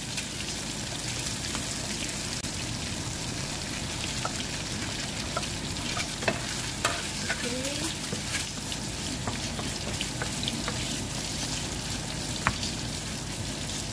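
Ground beef sizzling in a wok as cubed bottle gourd is tipped in and stirred with a wooden spoon. The steady frying hiss is broken by a few sharp knocks in the second half.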